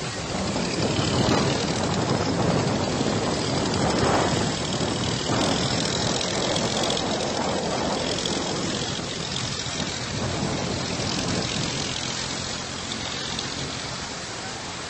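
Fast floodwater rushing with a steady, loud noise that swells and eases slowly.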